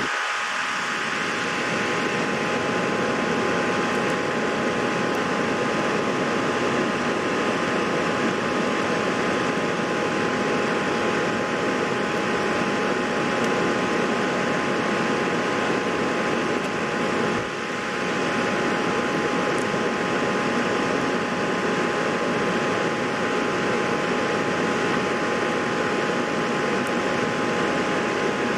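Steady fan noise with a few constant high tones, briefly dipping about two-thirds of the way through.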